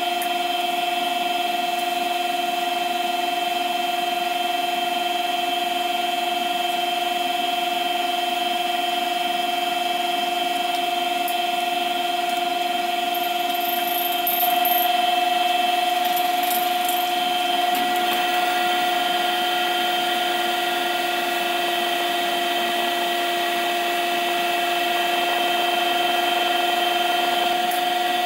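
Steady hum of a welding fume extractor's blower running, with a few short scratchy sounds about halfway through.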